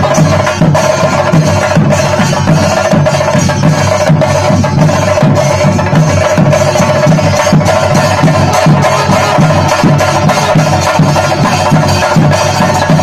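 Chenda drums, many played together, beaten with sticks in a fast, dense, continuous rhythm, with a steady held tone running under the strikes.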